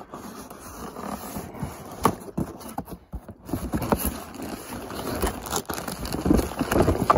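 Cardboard box being handled and opened: cardboard scraping and rubbing with scattered knocks and clicks, busier and louder in the second half as the tab flap is pulled open.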